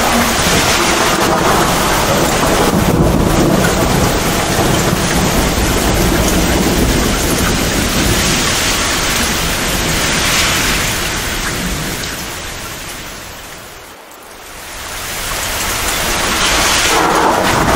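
Torrential rain pouring steadily, with low rolling thunder. About fourteen seconds in, the whole sound briefly fades down and then swells back up.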